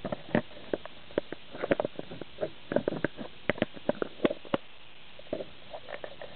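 Handling noise from a handheld camera being carried and moved: irregular clicks, knocks and rustles that thin out after about four and a half seconds.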